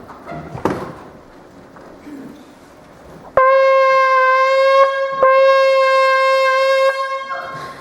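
A horn blown in a long, steady held note, a call to alarm; it breaks off briefly and sounds again before stopping.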